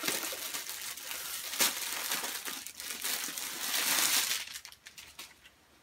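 Plastic packaging crinkling and rustling as a dress is unwrapped and pulled out of its bag, loudest about four seconds in, then dying away near the end.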